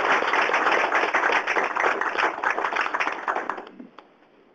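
Audience applause, many hands clapping at once, dying away near the end.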